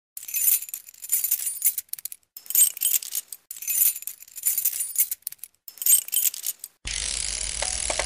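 Bright metallic jingling and clinking, shaken in about seven short bursts. About seven seconds in it cuts off and a steady hiss with a low hum takes over.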